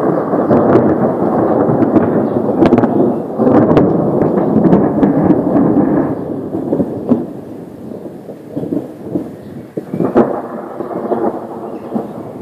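Loud rolling thunder rumbling for about six seconds, then dying away into a weaker rumble broken by sharp crackles, with one strong crack about ten seconds in.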